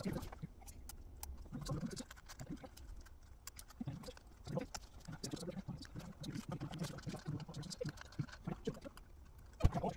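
Handling noise from working thin wires and electrical tape over battery cells: irregular light taps, rustles and clicks, with one sharp knock near the end.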